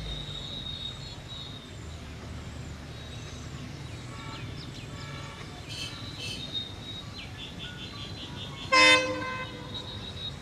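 WDM-3A diesel locomotive running slowly with a steady low engine rumble, giving one short, loud horn toot near the end.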